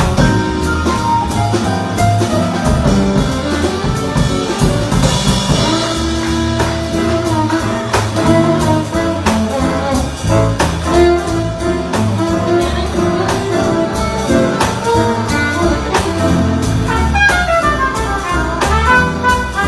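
Instrumental jazz music with drum kit and horns, saxophone and brass carrying the melody over a steady beat.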